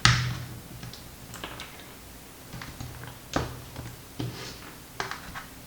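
Small, irregular clicks and scratches of glued rubber feet being picked at and peeled off the underside of a laptop's case, with a sharper click right at the start and another about three and a half seconds in.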